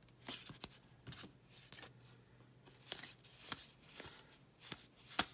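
Cardboard Topps Heritage baseball cards flipped through by hand, each card slid off the stack and tucked behind the others: a faint string of short, irregular swishes and light flicks, about two a second, with one sharper snap near the end.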